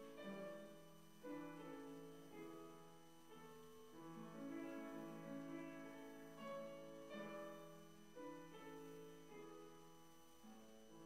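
Soft, slow piano music, with sustained notes changing about once a second.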